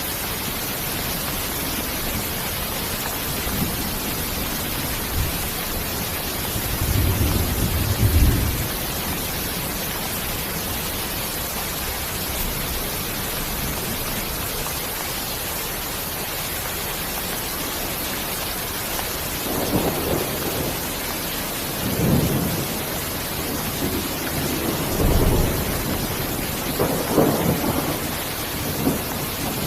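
Steady rain with rolls of thunder: a low rumble about seven seconds in, then several more rumbles in the last ten seconds.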